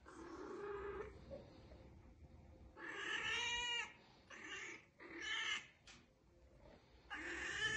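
Domestic cat giving a series of about five drawn-out calls with a wavering pitch. The longest lasts about a second, around three seconds in.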